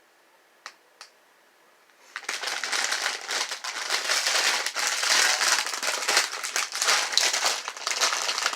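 A bag of marshmallow candy crinkling loudly as it is handled and opened, starting about two seconds in, after a couple of faint clicks.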